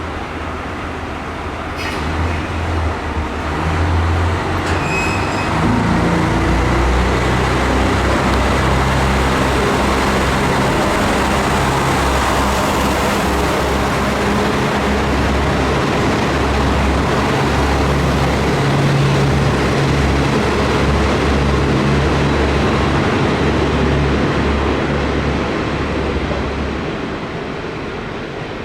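Kanto Railway Joso Line diesel railcar running past, its low engine note and running noise building over the first few seconds, holding steady for about twenty seconds, then fading near the end. Two sharp clicks sound early on.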